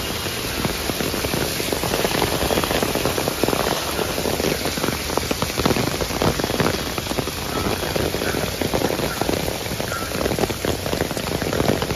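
Heavy rain falling on a wet paved street: a dense, steady patter of countless drops.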